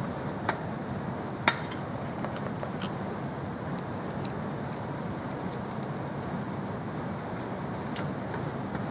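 Light clicks and taps of computer hardware being handled, over a steady background hiss. One sharper click comes about a second and a half in, and a quick run of faint ticks follows around the middle.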